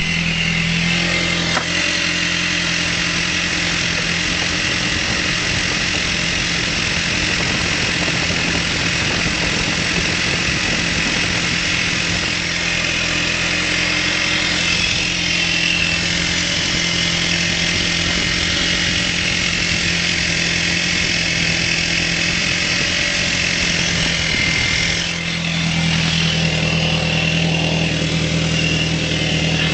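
VW Golf IV 1.8T turbocharged four-cylinder engine idling from a cold start, with the odd noise that comes only when the engine is very cold and for about a minute. Its low running note changes about two seconds in and again about 25 seconds in.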